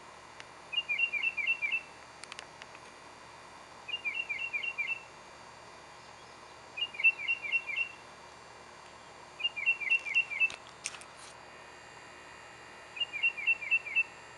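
A songbird singing: a short phrase of about five quick, downward-slurring chirps, repeated five times about every three seconds.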